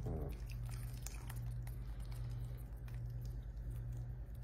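Thick chicken broth and cream-of-chicken soup mixture pouring from a glass bowl into a foil baking pan, a soft patter of liquid, over a steady low hum.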